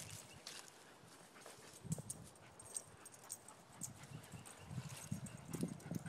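Faint, irregular soft thuds of footsteps on grass, with a few light clicks, more of them in the second half.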